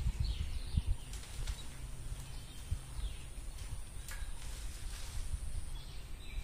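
Outdoor ambience: wind buffeting the microphone as an uneven low rumble, with a few faint chirps and a steady high-pitched hum that stops near the end.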